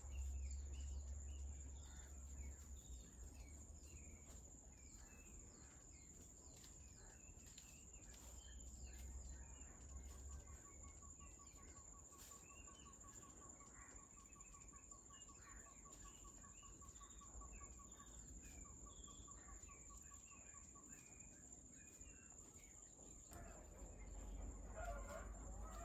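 Quiet forest ambience: many small bird chirps and calls, a steady high-pitched insect whine, and an even, rapid trill that runs for several seconds through the middle. A louder call comes near the end.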